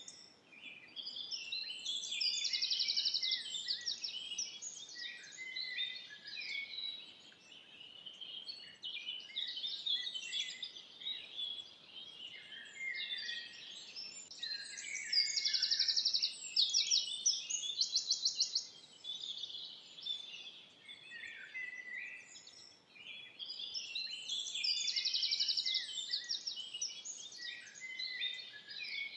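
Dense chorus of many forest songbirds singing at once, overlapping chirps and phrases, with a fast high trill standing out about four times.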